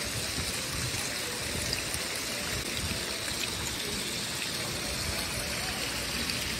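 Steady rushing and trickling of swimming-pool water.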